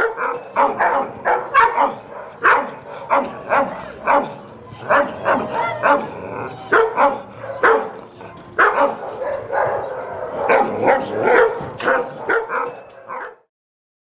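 Dogs barking over and over in uneven runs of short, sharp barks. The barking stops suddenly near the end.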